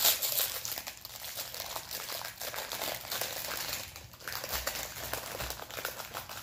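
Crinkly plastic wrapper of a packet of chocolate digestive biscuits crackling as it is twisted and pulled open, with a loud crackle at the start.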